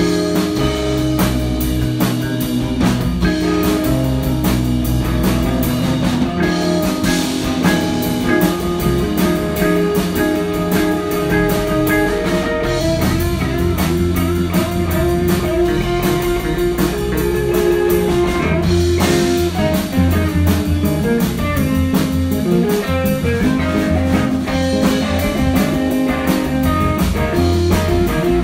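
Music: guitar over a drum kit keeping a steady beat.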